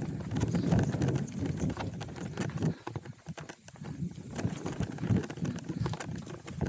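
Hardtail mountain bike riding fast down a rocky dirt trail: tyres rumbling and knocking over stones and roots, with the bike rattling. The rumble eases about three seconds in, leaving scattered sharp knocks and clicks.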